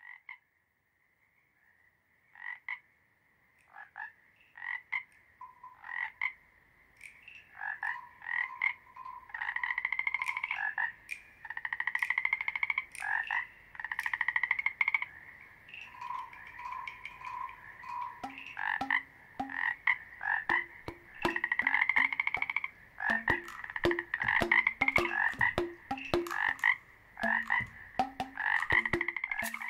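A chorus of frogs croaking: short repeated calls, sparse at first, then building into a dense, overlapping chorus. About two-thirds of the way through, lower, evenly spaced notes join in.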